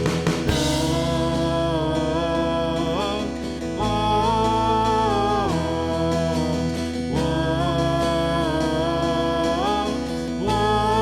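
Praise band playing a slow, mostly instrumental worship passage: held chords with guitar under a melody line, the chord changing about every three and a half seconds.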